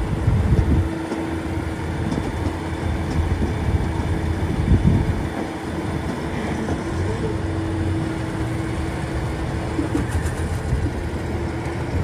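Tractors and a trailed potato harvester running steadily while the stationary harvester's elevator tips potatoes into a trailer, topping up the load. A steady drone under the engines stops about ten seconds in.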